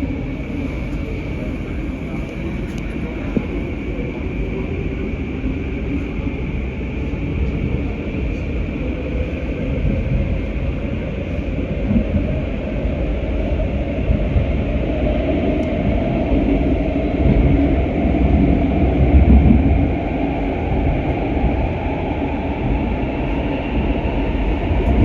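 A GTX-A train running through its tunnel, heard from inside a car: a steady low rumble of wheels and car body, slowly growing louder. In the second half a tone rises gradually in pitch.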